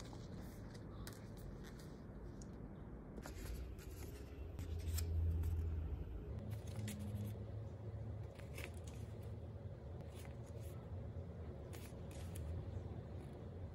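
Paper being handled close up: glossy bookmarks shuffled, then a paperback manga volume's pages turned and flipped, in light crisp rustles and scattered clicks.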